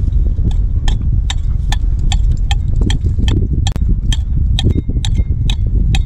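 Small hand pick striking rock and oyster shells to chip wild oysters loose: sharp, evenly spaced taps, about two and a half a second, over a steady low rumble.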